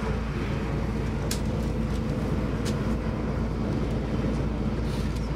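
Passenger ferry's engine running steadily underway: a constant low drone and hum with the rush of the moving hull, heard from inside the cabin. Two short sharp clicks cut in, about a second and a half apart.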